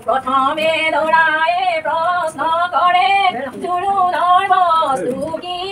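Women singing a traditional Assamese wedding song (biya naam) in long, wavering held notes.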